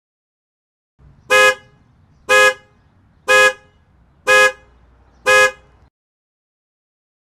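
Car horn honking five times in short, evenly spaced blasts, about one a second.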